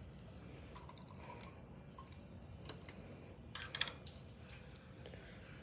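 Low background hiss with a few faint clicks, and a short cluster of sharper ticks about three and a half seconds in.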